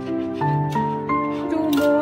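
Background music: a gentle melody of held notes that step from one pitch to the next.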